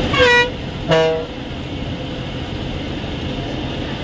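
Two short horn blasts from the bus about a second apart, the second lower-pitched. The bus's engine and road noise run steadily in the cabin throughout.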